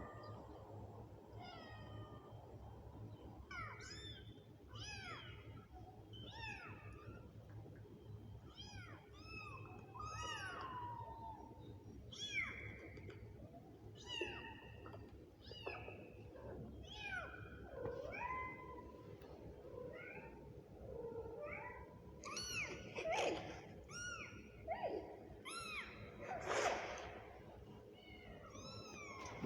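Kittens meowing over and over in short, high-pitched calls, about one or two a second, growing busier and overlapping near the end.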